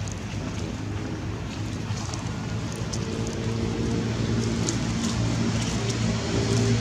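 A motor engine hums steadily and grows louder from about three seconds in, over a noisy background with a few light clicks.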